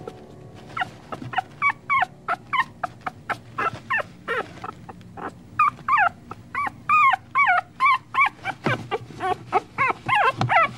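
Young puppies whining and yelping, a string of short high-pitched calls that bend up and down in pitch, about two or three a second, starting about a second in.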